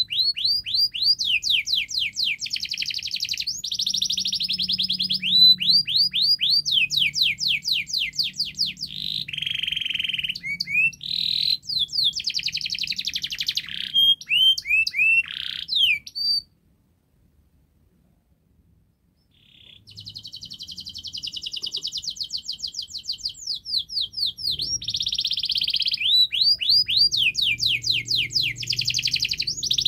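Domestic canary singing a long, loud song of fast trills and rolls, strings of rapidly repeated sweeping notes. It breaks off completely for about three seconds past the middle, then starts trilling again.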